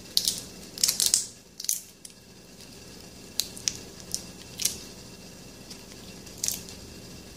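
Shrimp being peeled by hand: brief crisp crackles as the shells and heads are pulled off. They come several together in the first second or so, then singly every second or two.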